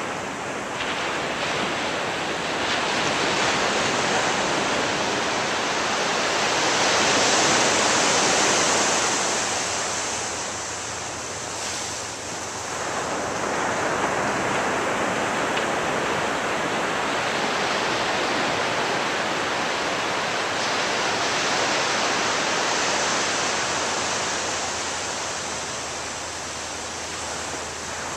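Ocean surf washing onto a beach, a continuous rush of waves that swells and eases. It builds to a peak about a quarter of the way in, drops back, then builds again and holds before easing off near the end.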